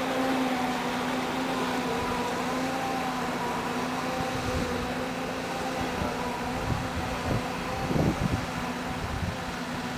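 Steady mechanical hum from a running motor, holding one constant pitch, with a few low thumps about eight seconds in.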